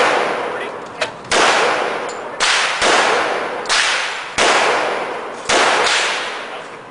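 Ruger Mini-14 semi-automatic rifle fired about seven times at an uneven pace, each shot followed by a long echoing decay off the concrete of an indoor range.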